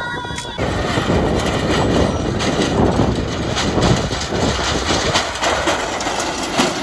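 Sonalika tractor's diesel engine running as it pulls a loaded trailer across rough grassland, with frequent short knocks and clatter from the trailer.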